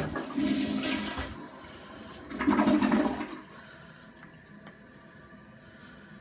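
Rushing water in two loud surges about two seconds apart, then dying down to a faint hiss.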